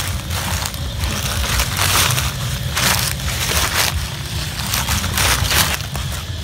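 Footsteps crunching through dry leaf litter and grass at a walking pace, a crunch roughly every second.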